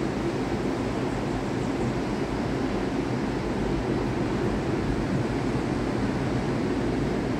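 Ocean surf breaking offshore, a steady low rushing roar with no single wave crash standing out.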